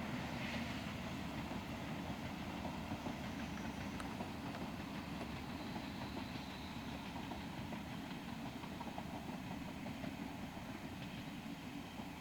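A train running on the line: a steady low noise that slowly fades, with a few faint clicks.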